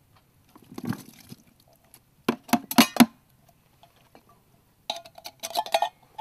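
Tin can of sweetcorn being tipped and knocked out over a plastic bucket: sharp clinks and rattles of the metal can, in a burst about two and a half seconds in and again near the end, as the corn drops into the bucket of boiled pasta.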